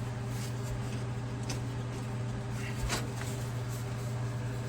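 A steady low mechanical hum with two light clicks or taps, one about a second and a half in and another near three seconds.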